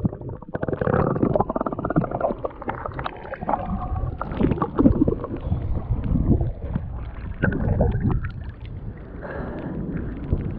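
Muffled sloshing and gurgling of sea water against a submerged, waterlogged microphone as it dips under and bobs back up at the surface, with uneven swells of splashing from a swimmer.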